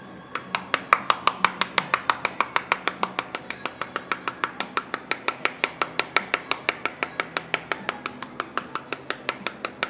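Knife chopping rapidly on a cutting board: an even run of sharp knocks, about five a second.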